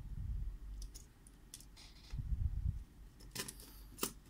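Faint small clicks and taps of fingers handling a laptop's fan-and-heatsink assembly and its connector, with two dull low bumps of handling.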